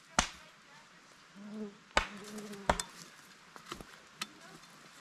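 A blade chopping into a wooden pole: five sharp, irregularly spaced blows, the first three loudest and the last two lighter, as the pole is notched. A brief low murmur of a voice comes just before the second blow.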